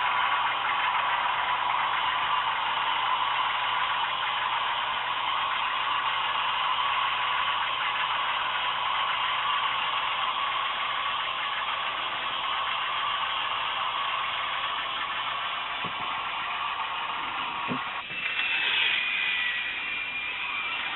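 Vintage K'Nex Screamin' Serpent toy roller coaster running, its motor-driven chain lift making a steady mechanical whirr. A low hum drops out about three-quarters of the way through, followed by two brief knocks and a higher whine near the end.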